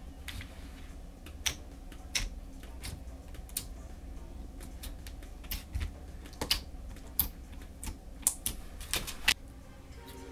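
Clear slime being pressed and squished between fingers, giving irregular sharp clicks and pops that come closer together in the second half.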